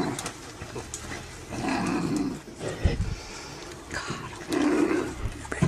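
Animal cries and growls from a pack of African wild dogs attacking a downed animal: two drawn-out calls, about a second and a half in and again near the end, with scattered short clicks between.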